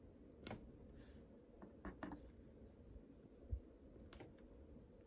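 Faint handling of a white card stock panel on a desk: a few sharp clicks and taps, the loudest about half a second in, a soft low thump around three and a half seconds, and a brief light rustle of paper.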